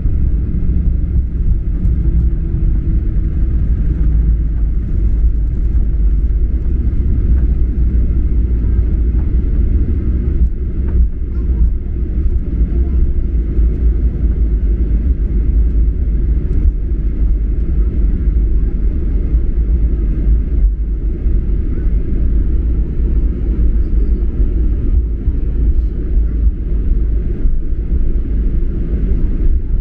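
Steady low rumble of a jet airliner's cabin in flight: engine noise and the rush of air over the fuselage, with an even hiss above it.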